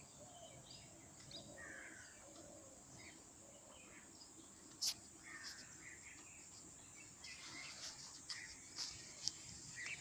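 Faint outdoor ambience: scattered distant bird chirps over a steady high-pitched hiss, with a sharp click about five seconds in and a few more clicks near the end.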